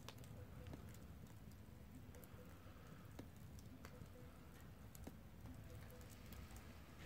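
Fire burning inside a steel fire barrel: a few sharp, scattered crackles and pops over a faint low rumble.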